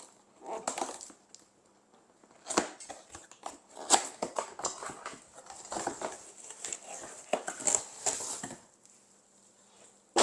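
Packaging crinkling and rustling, with irregular light knocks and clicks, as a new frying pan is unpacked and handled; it stops about a second and a half before the end.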